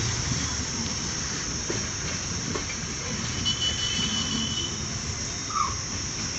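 Passenger coaches of a departing express train rolling past: a steady rumble of steel wheels on the rails with occasional clicks over rail joints, and a brief high wheel squeal a little after halfway.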